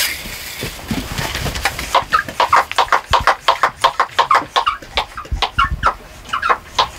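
A brief spray hiss from a hand pump sprayer at the start, then a quick run of short, sharp calls from barn animals, several a second.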